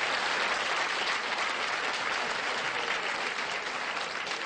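Studio audience applauding, a dense steady clapping that eases off slightly near the end.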